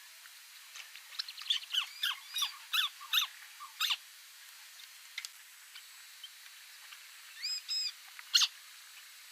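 White-browed crake calling: a quick run of sharp, sweeping calls in the first few seconds, then a short group of calls near the end.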